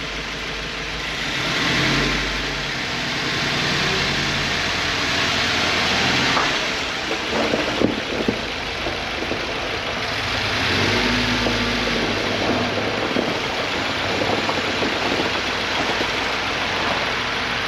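Freshly installed FA20 flat-four boxer engine running on its first start, its idle speed rising and falling a few times. A few sharp clicks stand out about six to eight seconds in.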